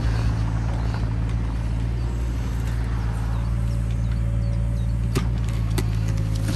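Mini excavator's diesel engine running steadily as the machine slews and tracks, with a few light knocks about five seconds in.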